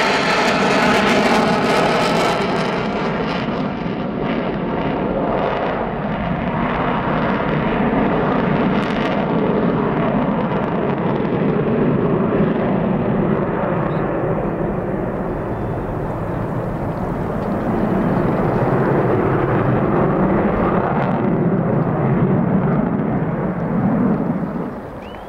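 Avro Vulcan XH558's four Rolls-Royce Olympus turbojets running loud in a low pass, the sound sweeping down in pitch as the bomber goes by. It then settles into a long, steady, duller rumble as it climbs away, dropping off just before the end.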